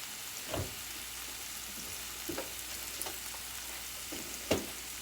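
Chicken strips sizzling steadily in a frying pan, with a few light knocks, the loudest about four and a half seconds in.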